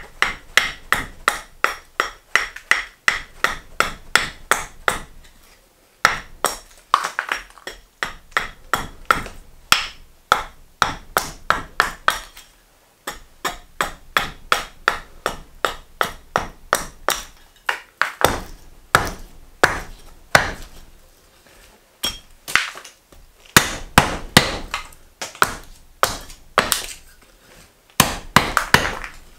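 Julia Kalthoff carving axe chopping a green maple spoon blank against a wooden chopping block: quick sharp chops, about two to three a second, in runs broken by brief pauses.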